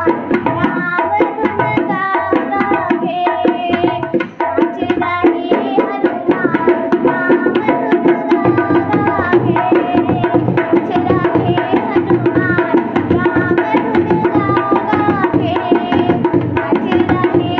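Dholak, a two-headed wooden barrel drum, played in a fast, busy rhythm as bhajan accompaniment, with a wavering melody line over the drumming.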